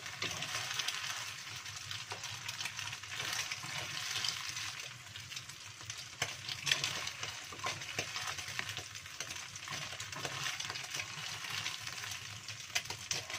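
Scrambled eggs sizzling in hot oil in a wok, with a wooden spatula scraping and tapping the pan. The frying hiss is steady, and sharp clicks from the spatula come now and then.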